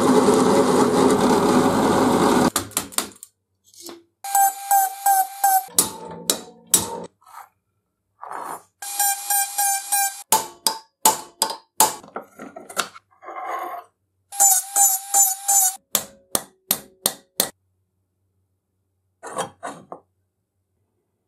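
Drill press boring into rusted steel, a continuous noise that stops about two and a half seconds in. Then several short bursts of a handheld rotary tool whining as its burr grinds rust off the old saw blade, with clicks and knocks of metal parts being handled in between.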